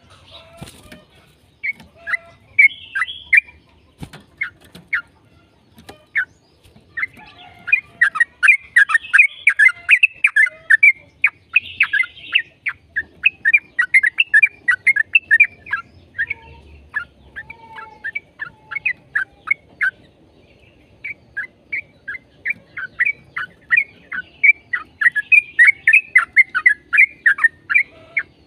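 Yellow-vented bulbuls singing long, fast chattering runs of short, bubbly, downward-slurred notes, the runs broken by a few short pauses.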